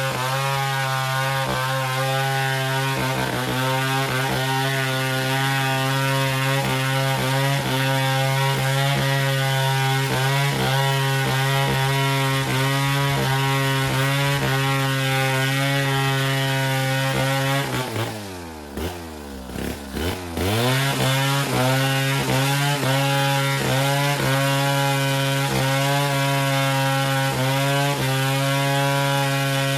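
Two-stroke chainsaw running steadily at high revs, cutting wood. A little past halfway the throttle is let off and the engine drops toward idle for about two seconds, then revs back up and carries on at full speed.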